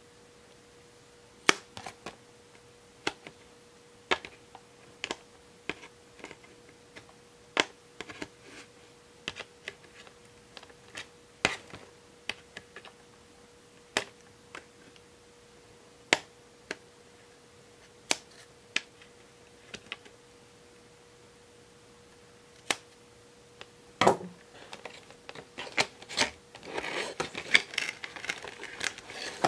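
Sharp snips, about one a second, as the plastic ties that hold a fashion doll in its box are cut. Plastic packaging crinkles and rustles for the last few seconds as the doll is worked free.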